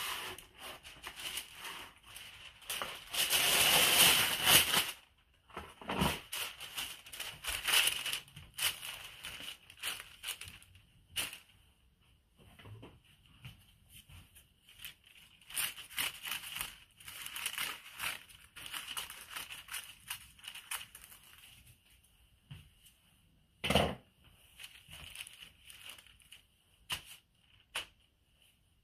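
Thin liner sheet crinkling and rustling as it is spread over a metal baking tray and smoothed by a gloved hand. It is loudest in the first five seconds, and there is one sharp knock later on.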